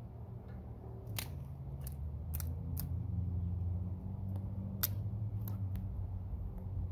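Thin dry twigs snapping in the hands, about eight sharp irregular cracks, over a low steady hum.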